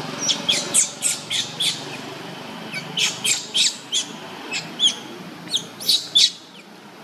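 Newborn baby macaque squeaking: short, high-pitched squeaks, each dropping in pitch, come in quick runs of two to six with short gaps between them.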